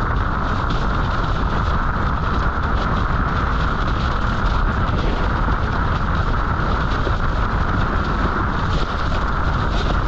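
Strong wind buffeting the microphone over rushing water, with irregular light slaps of a windsurf board skimming across chop.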